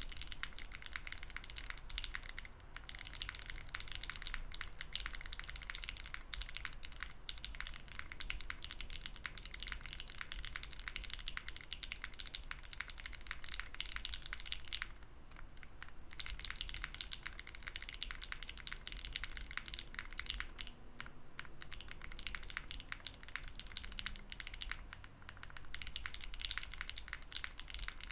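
Continuous fast typing on a mechanical keyboard with lubed LOGA Nomyen switches in a POM plate: a dense run of soft keystroke clicks, with brief pauses about two and a half seconds in and near the middle.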